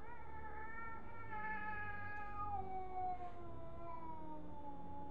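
Domestic cat yowling: one long, drawn-out caterwaul that slowly sinks in pitch. It is the threatening yowl of a cat facing off against another cat.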